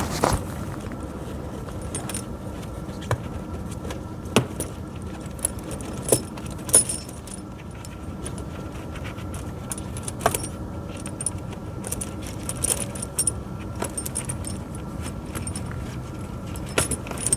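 Steel links of a pewag doppelspur tractor tire chain clinking and rattling as the chain is handled, in irregular clusters of sharp clicks over a steady background hum.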